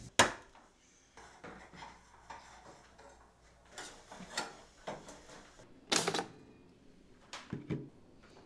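Scattered clicks, clinks and knocks of cookware and cutlery in kitchen work and eating, with a sharp click at the start and a louder clatter about six seconds in.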